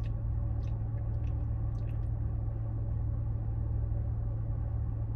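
Steady low hum of a car idling, heard from inside the cabin, with a few faint ticks in the first two seconds.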